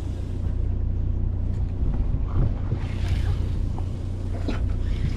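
Steady low hum of a fishing boat at sea, with wind on the microphone and the sea around the hull.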